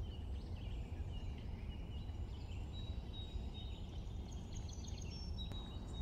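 Several small birds chirping and whistling in short, high phrases over a steady low background rumble.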